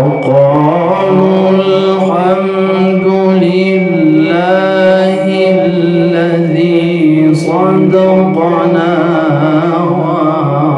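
A male Quran reciter chanting in the melodic tajwid style, drawing out long held phrases with rippling, ornamented changes of pitch.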